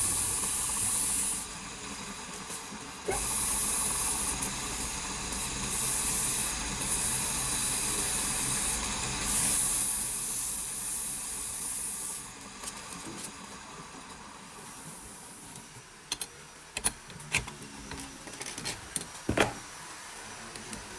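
Woodworking on a wooden vase: a steady hissing noise that comes and goes in stretches of a few seconds. About twelve seconds in it gives way to quieter work with scattered sharp clicks and taps.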